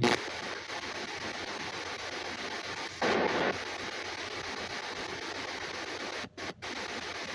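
S-Box ghost scanner (spirit box) sweeping radio frequencies: a steady hiss of radio static, with a louder burst about three seconds in and two brief dropouts to near silence near the end.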